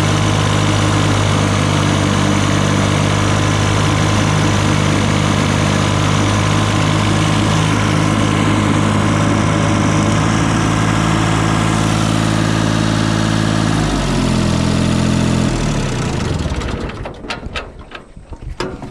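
Garden tractor engine running steadily. About fourteen seconds in it is throttled down, then shut off and winds down to a stop. A few clicks and knocks follow near the end.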